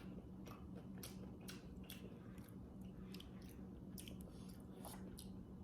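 Close-up mouth sounds of someone chewing a freshly baked chocolate chip cookie, with small wet clicks about twice a second.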